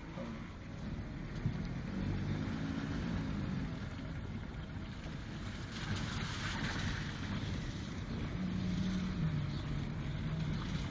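A car's engine and its tyres on a dirt track, heard from inside the cabin while driving.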